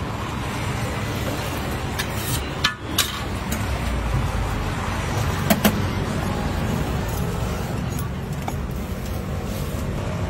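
Steady road traffic noise, with a few sharp clicks of metal utensils, one about three seconds in and another near the middle.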